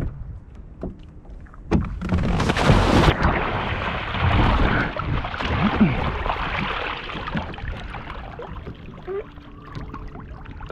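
A kayak capsizing: a loud splash about two seconds in as the Pelican Catch PWR 100 rolls over and the paddler drops into the water. Several seconds of water churning and sloshing follow as he thrashes and stands up beside the upturned hull, then die down.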